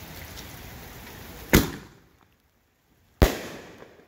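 Steady rain hiss while the fuse burns. About a second and a half in comes the thump of a Great Grizzly Premium Willow aerial shell lifting out of its mortar tube. About a second and a half later the shell bursts overhead with a loud bang that trails off.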